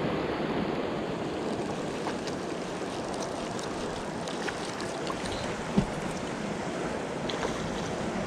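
River water rushing steadily, with scattered small splashes and a single sharp knock about six seconds in.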